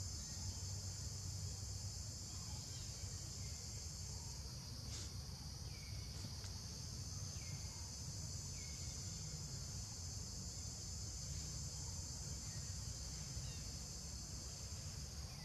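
Steady high-pitched insect chorus buzzing without a break, with a few short downward chirps here and there over a low steady rumble.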